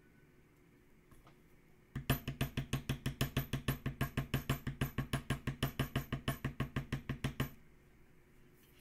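White poly mallet rapidly tapping a metal leather-stamping tool into cased (dampened) veg-tan leather on a marble slab, tooling a leaf vein. An even run of sharp taps, about seven or eight a second, starts about two seconds in and stops after about five and a half seconds.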